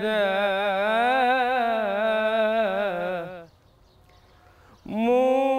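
Solo male voice singing Egyptian Islamic religious chant (inshad) without instruments: a long ornamented melisma that wavers up and down in pitch and trails off about three and a half seconds in. After a short breath-pause a new, steadily held phrase begins near the end.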